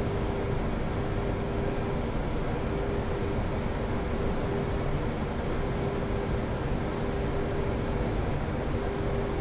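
Steady flight-deck noise of a Boeing 737-800 on final approach with landing gear down and flaps 30: an even rush of airflow and engine sound with a steady low hum.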